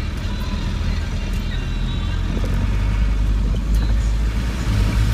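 Land Rover 90's diesel engine running as the truck drives along a rough, muddy track, heard from inside the cab as a steady low drone that grows a little louder over the last couple of seconds.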